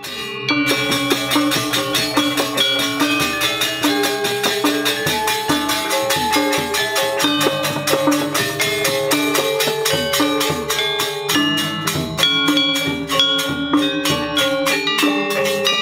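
Sasak gamelan ensemble playing: bronze saron metallophones struck with mallets in a quick, dense run of ringing notes, together with a row of small kettle gongs beaten with sticks.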